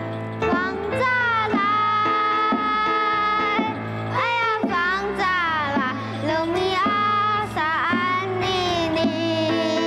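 A child singing a cheerful children's song in Amis over instrumental backing music.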